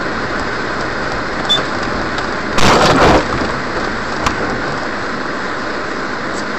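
Steady road and engine noise of a car driving on a snowy street, heard from a dashcam inside the car. About two and a half seconds in comes a loud rumbling burst lasting about half a second, and there are a couple of short clicks.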